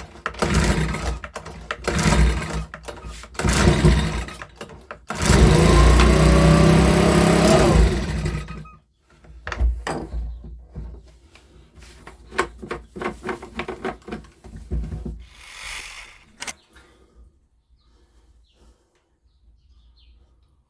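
Makita BHX2500 leaf blower's small four-stroke engine running in uneven bursts, then held on a sustained rev with rising pitch for about three seconds before cutting off near the middle. Scattered clicks and knocks of handling follow.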